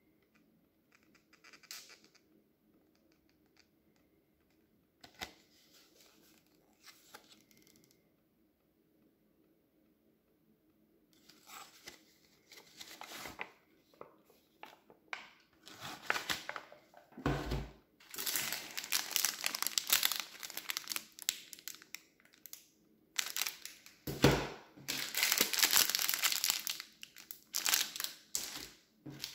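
Plastic ration-pack wrappers crinkling and crackling as they are handled and torn open. It is faint for the first ten seconds or so and grows loud and dense from about the middle. Two dull knocks come in the middle of it.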